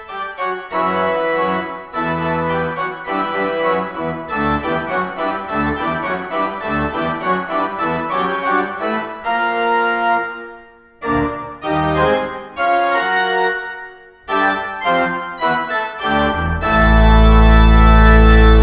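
Organ postlude closing the service: quick passages of notes broken by two short pauses, ending on a loud full chord with deep pedal bass held steady for about two seconds.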